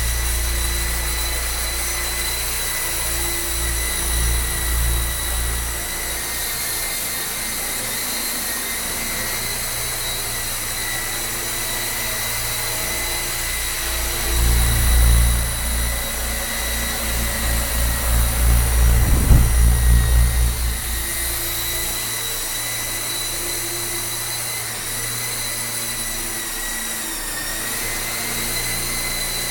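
ESky KOB radio-controlled electric helicopter flying, its motors and rotors giving a steady high-pitched whine. A low, gusty rumble from the rotor wash on the microphone comes in at the start and again from about 14 to 21 seconds in, when it hovers close and the sound is loudest.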